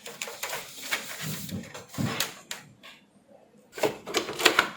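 Clicks, taps and rustling as a TV's plastic and panel parts are handled and fitted into the frame, with a brief lull about three seconds in followed by a quick run of sharp clicks.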